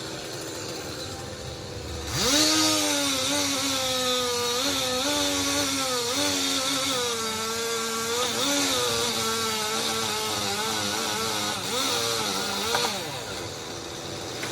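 Chainsaw idling low, revving up sharply about two seconds in and cutting wood for about eleven seconds, its engine pitch sagging and recovering as the chain bites, then dropping back to idle near the end.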